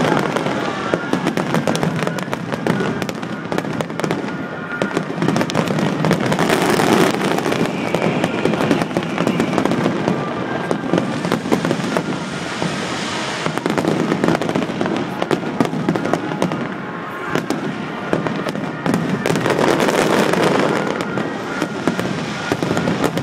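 Fireworks display: a dense, continuous barrage of bangs and crackling that swells louder several times.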